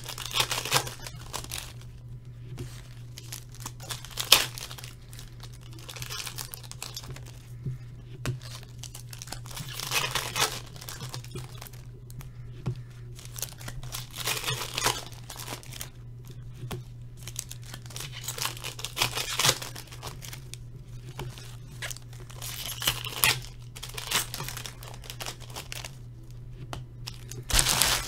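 Hockey trading-card pack wrappers being torn open and crinkled, in irregular bursts, over a steady low hum.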